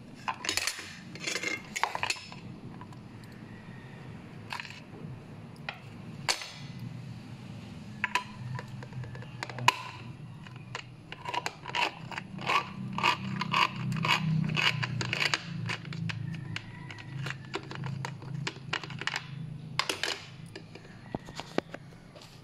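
Manual gear-type can opener cutting around the lid of a steel meat loaf can: sharp metallic clicks and scraping as the knob is turned. A few scattered clicks at first, then quick runs of several clicks a second from about eight seconds in, stopping near the end.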